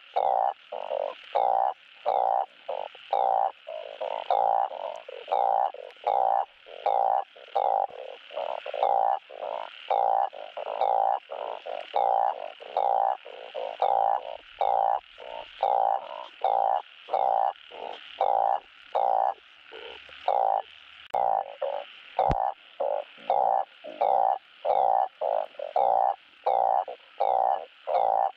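Truncate-snouted burrowing frogs (Glyphoglossus molossus) giving their mating calls to attract a mate: a steady run of short croaks, about two a second.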